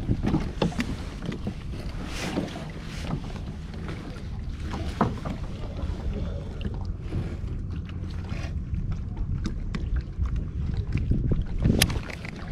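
Wind rumbling on the microphone aboard a fishing kayak on the sea, with scattered knocks and clicks against the hull; the sharpest knock comes near the end.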